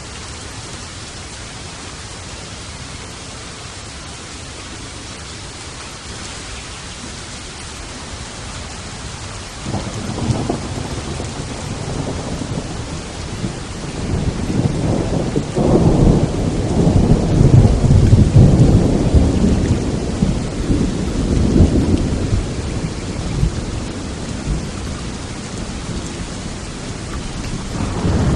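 Steady rain hiss, then about ten seconds in a long roll of thunder breaks in, swells to its loudest in the middle and rumbles on for over ten seconds before fading; a new rumble of thunder starts near the end.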